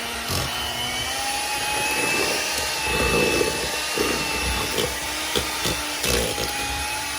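Electric kitchen mixer running steadily while whipping softened butter, its motor whine holding an even pitch, with occasional knocks.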